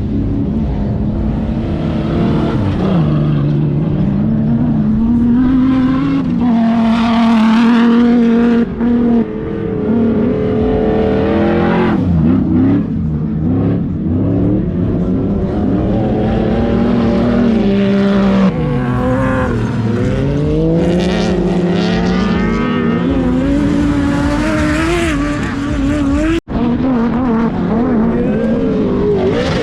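Competition car engine revving hard, its pitch climbing and falling back again and again as the car is driven on the throttle. The sound cuts out for an instant near the end.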